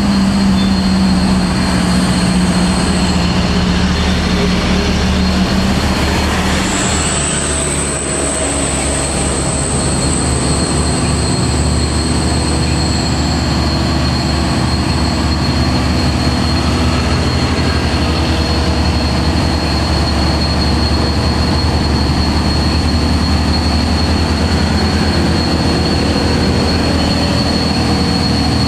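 Hino 500 dump truck's diesel engine labouring in a low gear as the truck creeps up a steep hill, a steady low drone with a steady high whine above it.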